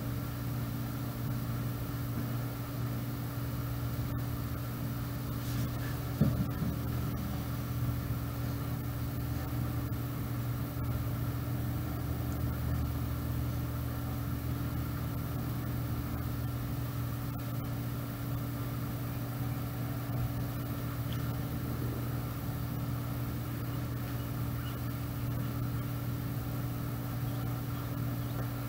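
A steady low mechanical hum, even in level throughout, with one brief sharp sound about six seconds in.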